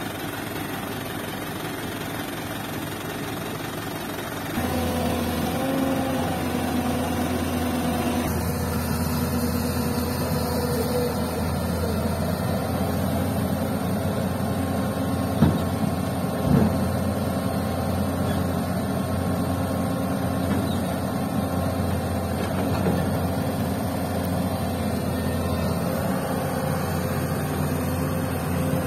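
A diesel dump truck's engine idling, then a Hyundai excavator's diesel engine running steadily as it digs and loads soil into the truck. Two sharp knocks come about halfway through.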